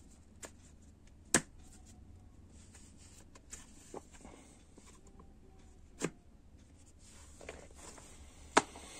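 Yakut knives in leather sheaths being handled: a few sharp clicks and knocks, loudest about one and a half seconds in and near the end, with faint rustling between.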